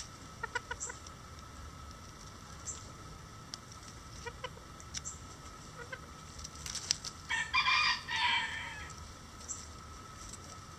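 Bantam chickens cluck softly and peck at a hanging ear of corn, with scattered light taps. About seven seconds in, a bantam rooster crows once, in two parts, and this is the loudest sound.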